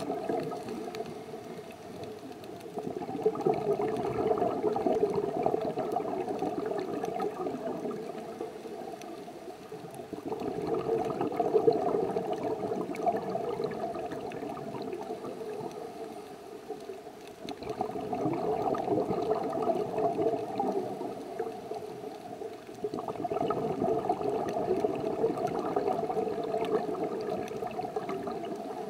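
Scuba diver's regulator breathing and exhaled bubbles heard underwater, a muffled bubbling that swells and fades about every six or seven seconds.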